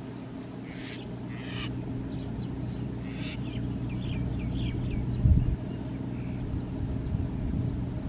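Small tracked rice combine harvester's engine running steadily while it cuts rice, with short high bird calls over it in the first half and a brief low thump about five seconds in.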